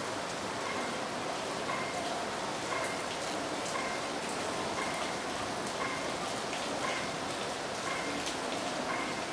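Steady hiss of rain, with short faint beeps repeating a little under once a second.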